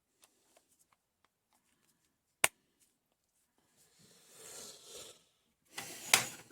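Handling sounds as a socket is fitted to a cordless ratchet's 3/8" drive: one sharp click about two and a half seconds in, then rustling, and a louder scraping clatter with a click near the end.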